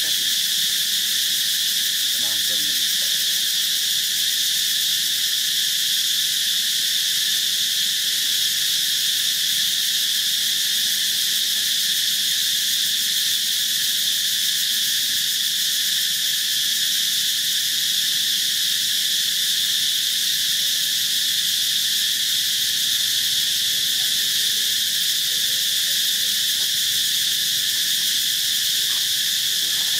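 Forest insects calling in a continuous, steady high-pitched chorus that does not change in level.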